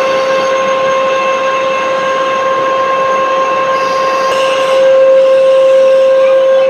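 Metal lathe running while turning a tin bronze workpiece: a steady high-pitched whine over a hiss, growing a little louder about four and a half seconds in.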